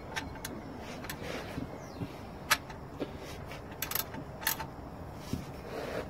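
Ratchet wrench clicking and clinking on the oil sump drain plug as the plug is tightened: a scattering of separate sharp metallic clicks, the loudest about two and a half seconds in.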